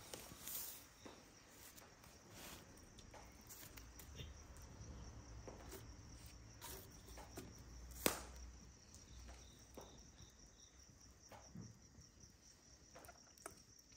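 Crickets chirping faintly and steadily at night, with scattered soft clicks and one sharper click about eight seconds in.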